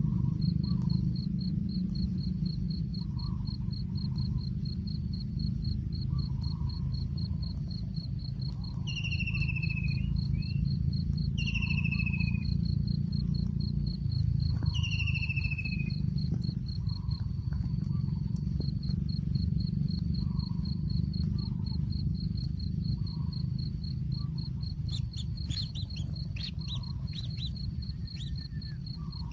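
A steady, rapid, high-pitched insect trill, over a constant low rumble. Three short whistled bird calls slide downward in pitch, a few seconds apart, and a few scratchy clicks come near the end.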